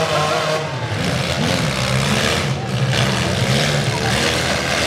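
Several four-cylinder demolition derby cars' engines running and revving together, their pitch rising and falling over a steady wash of noise.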